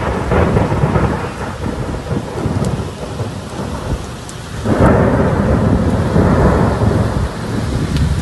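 Heavy rainstorm: a steady downpour with a loud low rumble that swells about five seconds in and holds.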